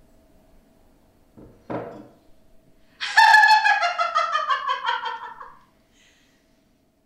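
A woman's loud, high laugh: a quick run of 'ha' pulses falling steadily in pitch for about two and a half seconds. A short thud comes about a second before it.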